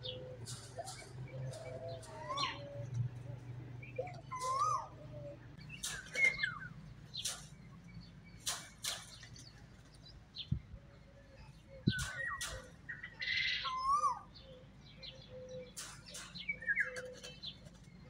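Parakeets calling around an open aviary: many short, sharp squawks and chirps scattered through, with a few calls that bend up and down in pitch.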